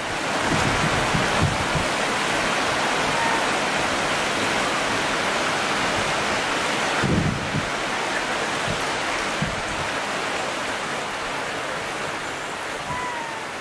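Steady rushing of flowing water, an even hiss with a brief low thump about seven seconds in.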